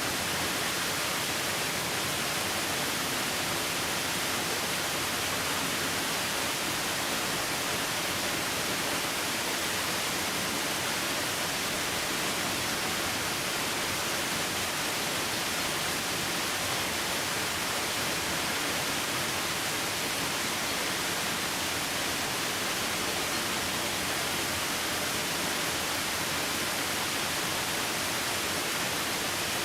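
Waterfall: a steady, unbroken rush of falling water, heavy on the hiss.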